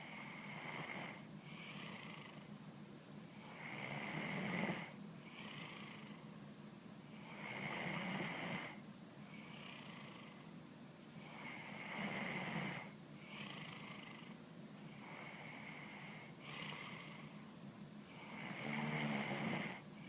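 Snoring in a slow, steady breathing rhythm. A louder snore lasting about a second comes roughly every four seconds, with softer breaths between.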